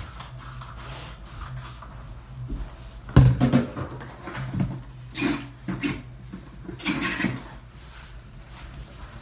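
Handling noises from someone cleaning a small room: a sharp knock about three seconds in, then several brief rustles and scrapes, over a steady low hum.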